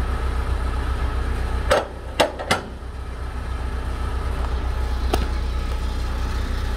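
A truck engine idling steadily, a low hum, with three sharp knocks close together about two seconds in and one more about five seconds in, as a cargo strap is handled on the flatbed.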